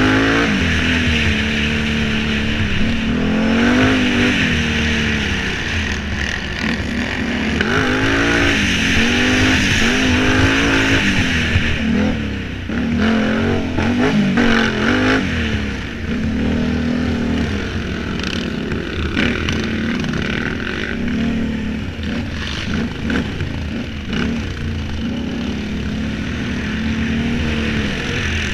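Race quad (ATV) engine heard from on board, its pitch rising and falling every second or two as the throttle is worked and gears change over a rough dirt track.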